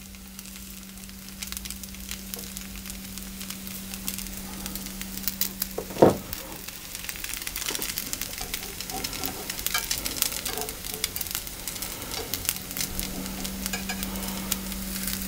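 Thin pancake batter sizzling in a hot frying pan, the crackle growing gradually louder, over a steady low hum. A single short knock about six seconds in, then a spatula scraping under the pancake's edge.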